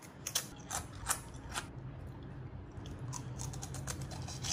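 Dry crisp snacks being handled on a ceramic platter: a few sharp clicks in the first second and a half, then a quick run of small clicks and crackles near the end.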